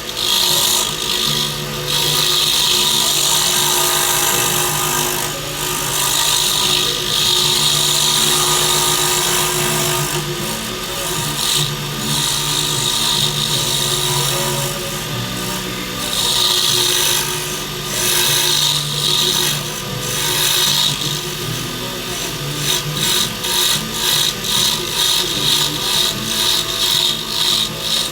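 Wood lathe running while a tool scrapes and cuts a spinning dyed-and-stabilized burl pen blank. The scraping swells and fades in passes over a steady motor hum, then turns into quick, even pulses of about three a second near the end.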